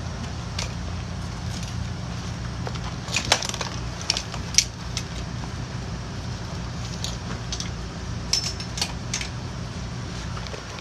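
Scattered sharp metallic clicks and clacks of buckles and strap hardware being handled while a Pedi-Mate restraint is fitted to a stretcher cot, over a steady low hum.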